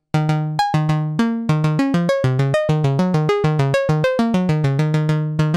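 Mutable Instruments Plaits macro-oscillator synth module playing a fast step sequence of short, plucked-sounding notes at changing pitches, several notes a second, each note struck by a gate from a step sequencer.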